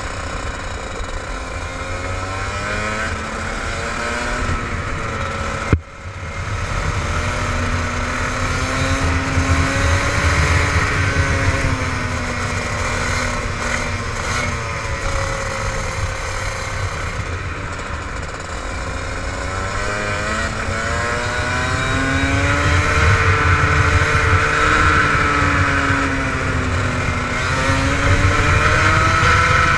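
Rotax 125cc single-cylinder two-stroke kart engine at racing speed, revving up on the exits and dropping off into the corners in repeated rising and falling sweeps. About six seconds in there is a sudden sharp crack and a momentary dip in the sound, and the engine is louder and higher-revving near the end.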